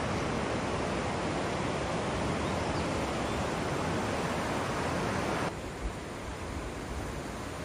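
Floodwater of a swollen river rushing steadily below a bridge. About five and a half seconds in the rush cuts off abruptly to a quieter hiss, with a brief knock soon after.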